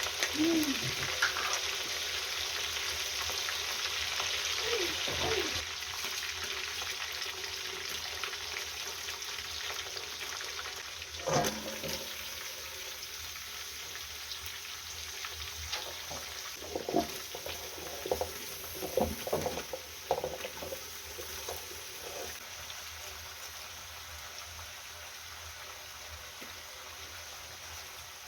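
Food sizzling in a hot pot, a steady hiss that slowly dies down, with a few short clinks and knocks in the middle.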